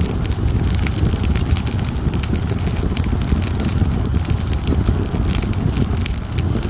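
Wood fire burning in a fireplace: a steady low rumble of flames with many small, sharp crackles and pops throughout.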